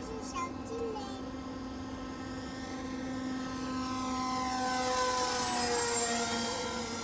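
Electric motor and propeller of an RC Horten BV-38 flying wing whining overhead. It grows louder as the plane approaches, then drops in pitch as it passes by, about five seconds in.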